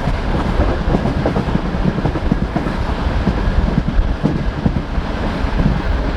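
Passenger train carriage running at speed, with a steady rumble and repeated clickety-clack knocks of the wheels over rail joints.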